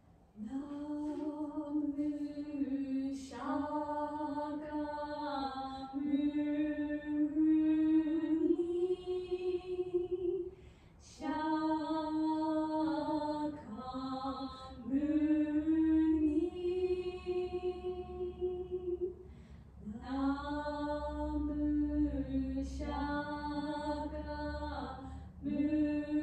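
Shomyo, Japanese Buddhist liturgical chant, sung unaccompanied by a single woman's voice. It moves in long held notes that bend and slide between pitches, in phrases broken by a few short pauses.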